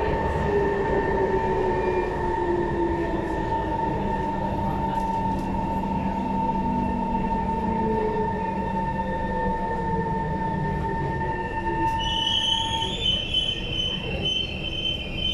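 SMRT MRT train heard from inside the carriage, running with a steady electric whine and a lower motor tone that slowly falls in pitch as the train slows. About twelve seconds in, a high-pitched wheel or brake squeal starts and the steady whine stops.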